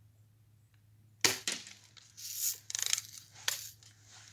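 BB gun shot: one sharp crack about a second in, followed closely by a fainter click, then a stretch of rustling and clicking and one more sharp click.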